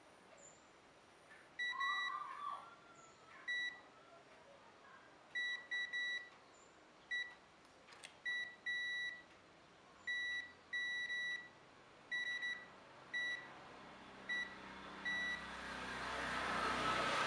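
Digital multimeter's continuity buzzer giving about fifteen short, irregular beeps at one steady pitch as the probes touch points on a phone logic board, hunting for a short circuit around the CPU; each beep marks a near-zero-resistance contact. A broad noise swells near the end.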